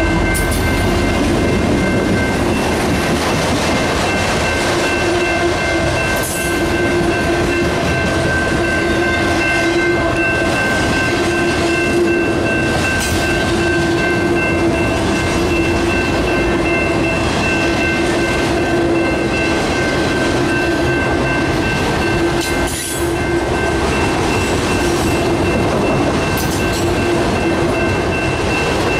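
Freight train of autorack cars rolling past a grade crossing, wheels clacking on the rails with occasional sharp clanks. A steady ringing tone carries over it, which fits the crossing bell ringing while the gates are down.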